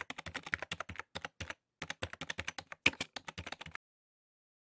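Computer keyboard typing sound effect: a quick run of key clicks, about nine a second, with a short break about one and a half seconds in. The clicks stop about a second before the end.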